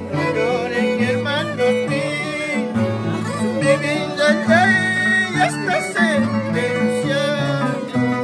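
Violin and Andean harp playing a tune together: the bowed violin carries a gliding melody over low plucked harp notes.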